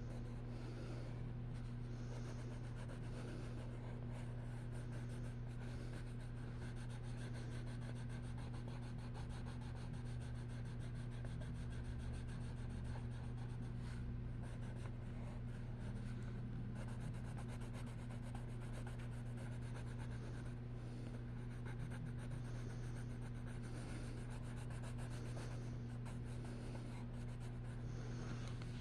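Colouring on paper: a drawing tip scratches and rubs steadily as it shades over the page, under a steady low electrical hum.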